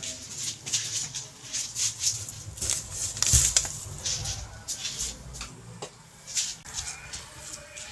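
Thin plastic supermarket carrier bags rustling and crinkling as they are handled, in quick irregular crackles, with a single thump a little over three seconds in.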